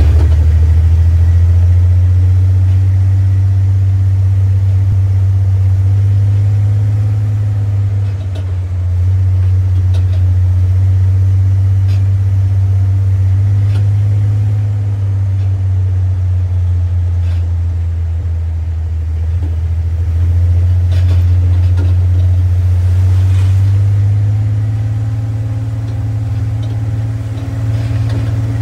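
A motor vehicle engine running steadily at low revs, a deep even hum that eases and swells slightly, with a few faint clicks.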